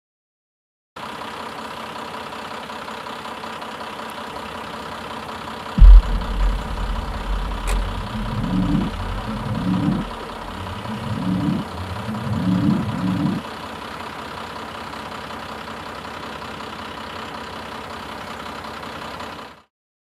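A vehicle engine starts with a very loud thump, then is revved about five times in quick rising-and-falling sweeps before settling. A steady background hiss runs under it.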